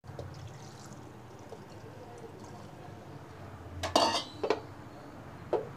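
Warm water poured from a steel tumbler onto grated coconut in a steel mixer jar, then the steel vessels clink and knock together: three sharp knocks, the loudest about four seconds in, then two lighter ones about half a second and a second and a half later.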